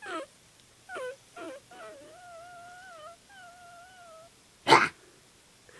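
A person's voice giving a few short high cries, then a long wavering high-pitched whine. Near the end comes one loud thump, the loudest sound here.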